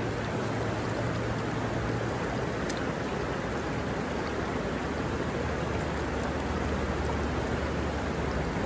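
River water rushing over rocks in a shallow riffle: a steady, even rush.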